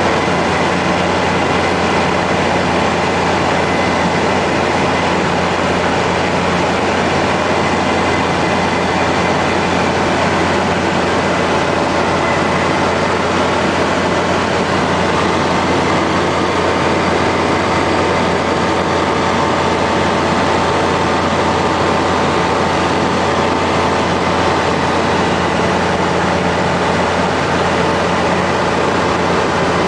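Foxbat A-22L microlight aircraft's engine and propeller running in flight: a loud, steady drone with rushing air noise that holds unchanged throughout.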